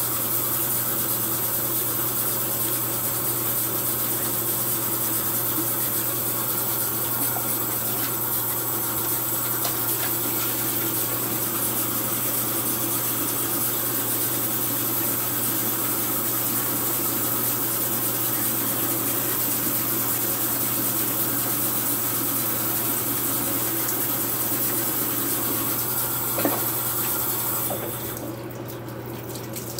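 Bathroom sink tap running steadily while a face is rinsed with hands under it, then turned off near the end.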